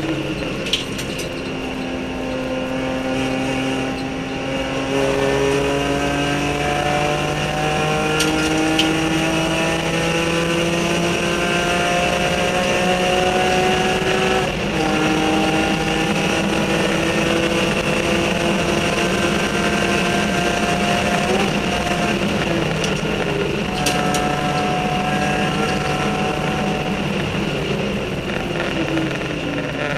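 BMW E46 M3 race car's straight-six engine heard from inside the cockpit under hard acceleration, its pitch climbing steadily through the revs, with an upshift about halfway through where the pitch drops and climbs again. Wind and road noise run underneath, with a few sharp clicks.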